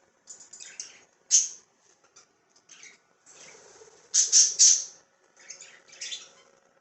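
Budgerigars chirping and squawking in short, high-pitched bursts, with the loudest run of calls about four seconds in.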